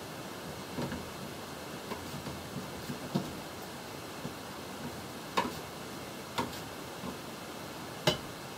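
Knife cutting vegetables on a cutting board: irregular, unevenly spaced knocks, the sharpest in the second half, over a steady hiss.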